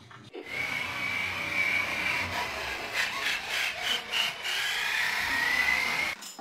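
Small electric motor of a toy dump truck whining with a slowly wavering pitch, with rolling and scraping noise as the truck moves across a wooden floor. It starts about half a second in and stops abruptly just after six seconds.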